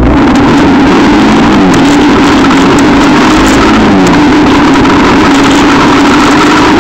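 Quad bike engine running steadily under way on a gravel track, very loud, its pitch dipping and recovering a couple of times, over a constant rush of wind and tyre noise.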